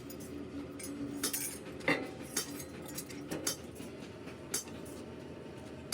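Light metallic clinks and knocks, about half a dozen spread unevenly over a few seconds, as metal tools or parts are handled.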